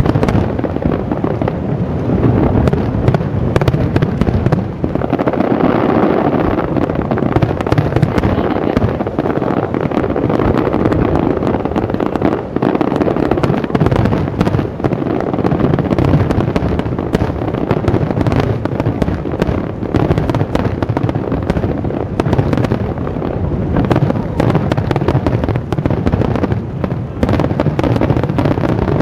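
Aerial fireworks display: a dense, continuous barrage of shells bursting, with rapid overlapping bangs and crackle and no let-up.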